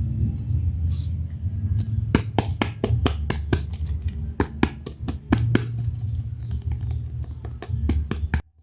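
Hands handling small plastic toy pieces and packaging: a run of sharp clicks and taps, thickest from about two seconds in, over a low handling rumble, stopping abruptly near the end.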